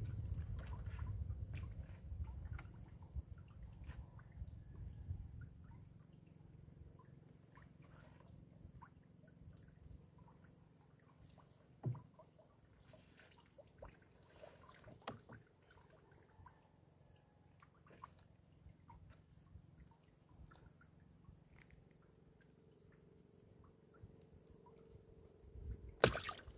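Wet fishing net being hauled by hand and flying fish picked out of it in a small wooden boat: faint scattered rustles, ticks and drips of water, with a low rumble over the first few seconds and a sharp knock near the end.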